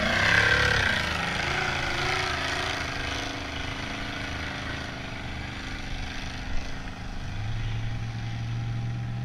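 Off-road buggy engine revving hard on a steep sand-hill climb, its pitch rising and wavering over the first few seconds, then easing off. A steady lower engine note comes in near the end.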